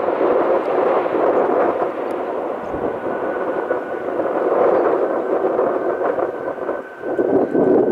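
Airbus A320 jet engines rumbling steadily as the airliner rolls out on the runway after touchdown, with gusty wind buffeting the microphone. A faint steady whine sits above the rumble in the middle, and the noise dips briefly just before the end.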